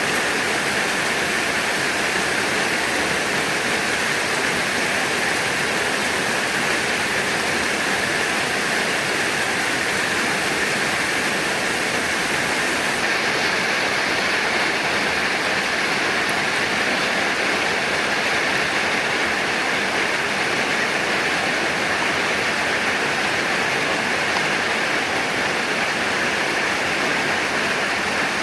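Heavy rain pouring down, a dense, steady hiss with no breaks.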